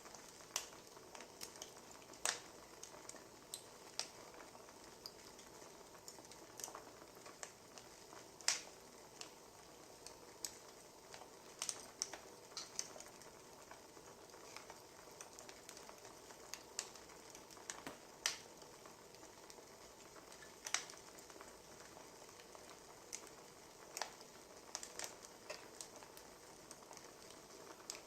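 Wood fire crackling: irregular sharp pops and snaps over a faint steady hiss.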